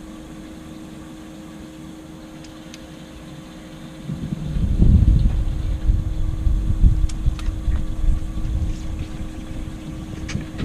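Wind buffeting the microphone in loud, gusty low rumbles from about four seconds in, over a faint steady hum. A few faint ticks come through now and then.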